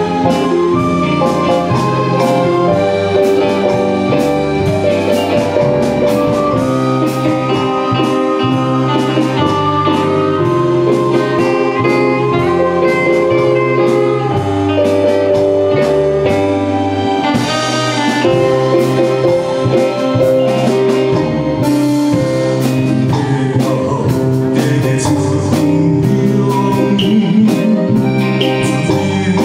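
A small live ensemble of violins, cello, keyboards and drums plays an instrumental interlude of a slow pop ballad. The male singer comes back in near the end.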